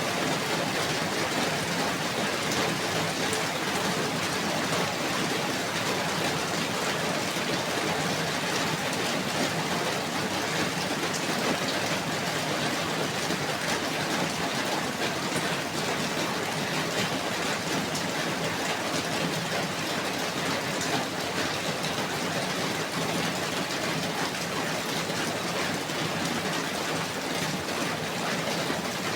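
Steady rain falling, an even hiss with many fine drops pattering on surfaces.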